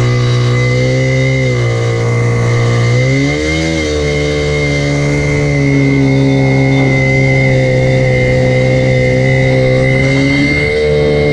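Jet ski engine running under throttle, its pitch dipping and climbing back a few seconds in, then holding steady, with a steady high whine above it.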